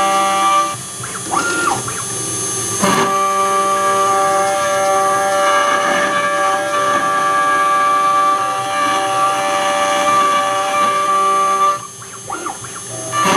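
High-frequency router spindle driving a 4 mm three-flute HSS end mill through aluminium: a loud, steady whine made of many ringing tones, over the hiss of the mist coolant. The cutting sound drops away twice, about a second in and again near the end, each time with a short whistle that rises and falls.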